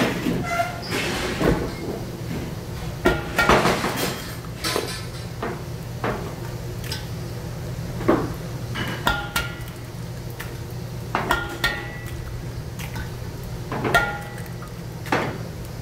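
Metal kitchen utensils clinking and knocking against stainless-steel bowls and a flat griddle: a dozen or so sharp, irregular strikes, some ringing briefly, over a steady low hum.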